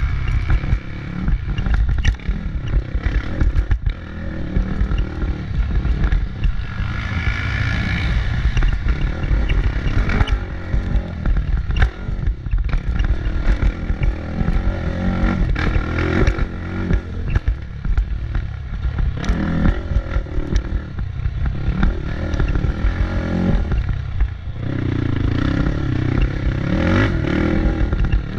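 Motorcycle engine running continuously, its speed rising and falling, with some clattering.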